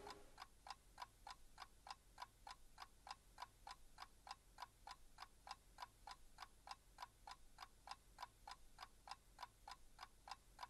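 A clock ticking, faint and perfectly even, about three to four ticks a second.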